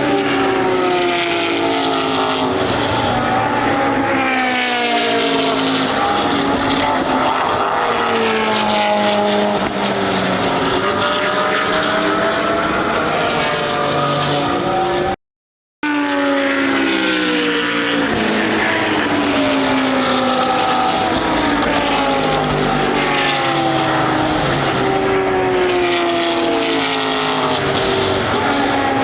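Several GT3 race car engines at racing speed, their pitch climbing and dropping through gear changes as the cars pass one after another. The sound breaks off for a moment about halfway through, then picks up again.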